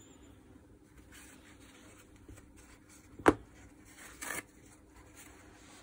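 A small ratcheting wrench and a cloth rag being handled at a workbench: light rustling, one sharp click a little over three seconds in, then a brief rustle about a second later.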